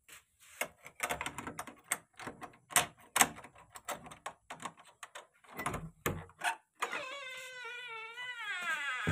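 A run of quick clicks and clattering knocks, then a high, wavering squeal lasting about two seconds that slides down in pitch at the end.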